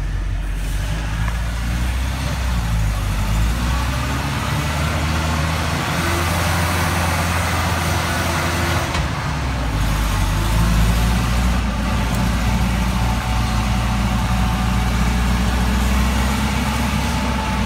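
Pickup truck engine running steadily, with a brief change in its low note between about six and nine seconds in.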